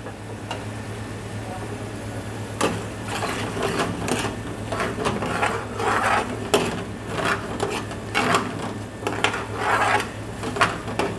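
Metal ladle scraping and clinking against an aluminium frying pan, in irregular strokes about once or twice a second, as it stirs chicken in a sauce thickening with cornflour. A steady low hum runs underneath.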